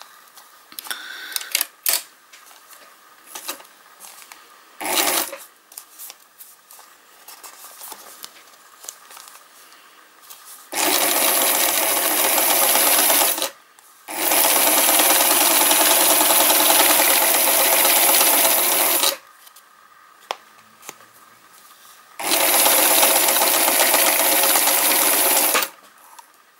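Electric sewing machine stitching through paper in three steady runs with short stops between them; the middle run is the longest, about five seconds. Before the first run there are only light clicks as the page is positioned under the presser foot.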